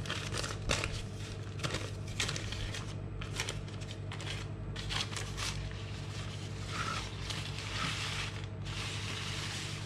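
Sheet of baking paper crinkling and rustling in irregular crackles as it is peeled slowly off a sheet of puff pastry that is sticking to it.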